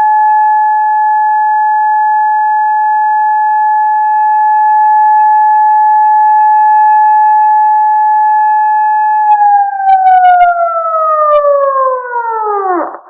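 Siren holding one steady high tone, then falling in pitch faster and faster as it winds down, with a few crackles, until it cuts off near the end.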